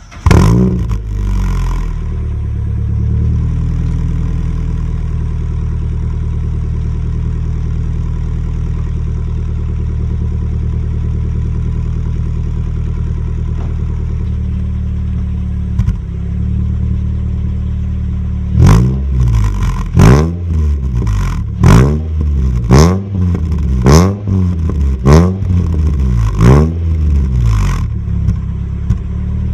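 Mitsubishi Lancer GT's 4B11 2.0-litre four-cylinder, heard at an HKS aftermarket muffler, catching on a cold start with a brief flare of revs, then settling into a steady cold idle. About two-thirds of the way through comes a string of about eight quick throttle blips, each rising and falling sharply, before it drops back to idle.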